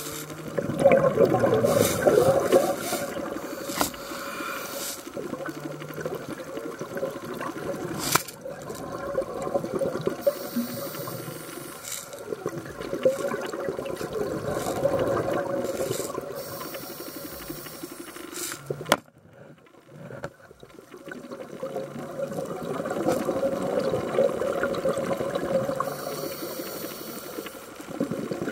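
A scuba diver's breathing heard through an underwater camera housing: swells of bubbling from the regulator's exhaust every several seconds, with quieter stretches in between. The sound drops out briefly about two-thirds of the way through.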